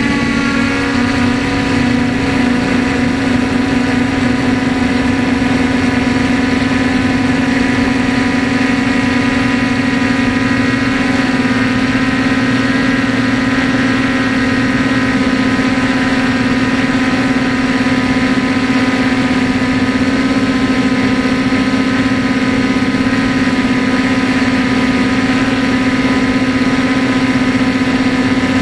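Quadcopter's four 2212 920 kV brushless motors and propellers running in flight, heard close up from the airframe: a loud steady whine that wavers in pitch for the first second, then holds a nearly constant pitch as the drone cruises.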